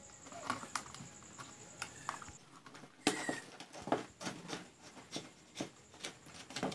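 Light clicks and taps of a screwdriver tester on the screws of a bulb holder being tightened onto a wooden board, then a sharper knock about three seconds in and more small taps as the board and wires are handled.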